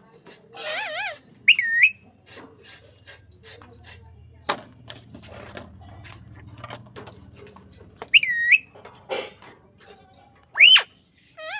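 Indian ringneck parrot giving short whistled chirps: a wavering whistle near the start, a couple of quick dipping chirps, and a sharp rising call near the end, with scattered small clicks in between.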